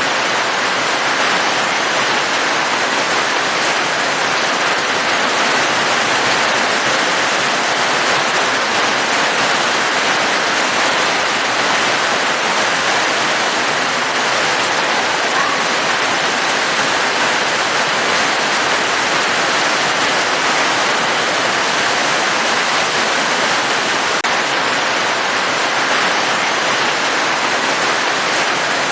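Steady heavy rain, an even hiss that stays the same throughout, with no breaks.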